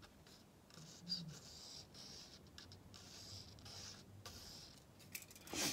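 Pencil drawing a line on a wooden block: a faint scratching in several strokes, followed by a brief louder rustle near the end.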